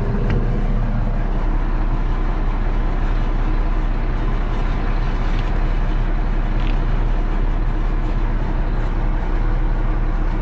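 The diesel engine of a 1981 Allis-Chalmers 7045 tractor running steadily at a constant speed, a low, even hum.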